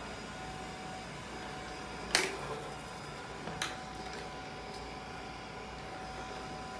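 ILIFE robot vacuum cleaner running with a steady whir and a faint steady whine. Two sharp knocks come about two seconds in and again a second and a half later, the first the louder.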